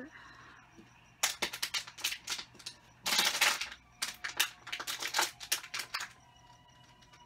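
A quick, irregular run of sharp clicks and crackles from small objects being handled, with a denser crackle about three seconds in.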